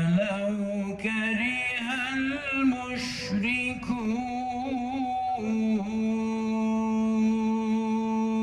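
A man reciting the Quran in a melodic chant: one voice gliding through ornamented notes, then holding a long steady note through the second half.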